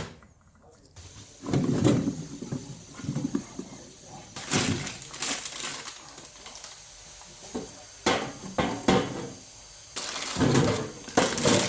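Irregular clunks, scrapes and clatter from metal drawers and plates under a lathe being handled and fitted, in several separate bursts.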